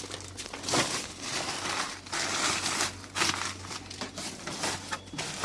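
Rustling and crinkling from material being handled, in irregular bursts.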